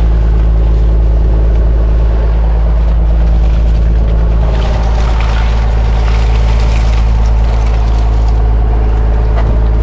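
Boat engine running steadily at an unchanging speed, a loud, even low drone.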